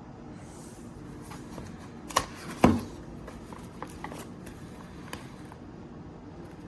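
Objects being handled on a hard surface: two sharp knocks a little after two seconds in, the second the loudest, then a scattering of light clicks.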